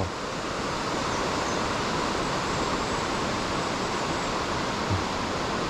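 Creek water flowing steadily, a constant even rushing.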